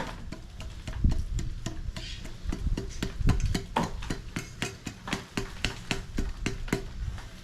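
Repeated metallic knocks and clanks, some heavier, as the drilled-up, crumbling catalyst core is banged out of a catalytic converter's steel shell. The hits come loosely in a rhythm, about two to three a second later on, many with a brief ring.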